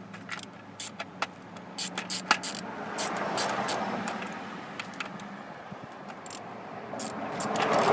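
Light metal clicks and clinks of hand tools tightening down distributor parts, several in the first few seconds. A passing car swells and fades twice, about three seconds in and again near the end.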